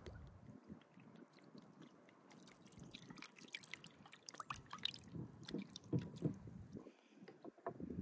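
Milk splashing into an enamel bowl of raw liver, then a hand squelching and kneading the liver pieces in the milk: irregular small wet splashes giving way to soft squishy slaps.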